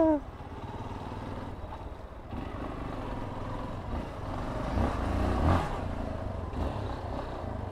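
Motorcycle engine running at low speed, with a brief rise in engine sound about five seconds in.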